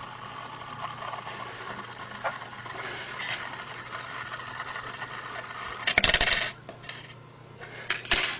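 Bent copper wire of a battery-and-magnet (homopolar) motor spinning on top of an AA battery, its ends rubbing and rattling against the battery and the magnet in a steady noise. About six seconds in comes a loud half-second clatter, and near the end another short sharp clatter as the wire is handled.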